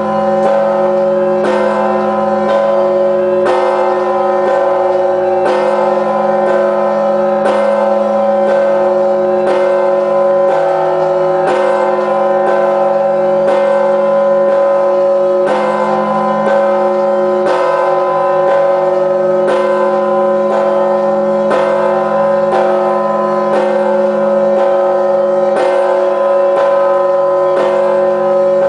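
A very large 7,150 kg church bell rung in a slow, steady rhythm: a heavy stroke about every two seconds with lighter strokes between, its deep hum ringing on without a break between strokes.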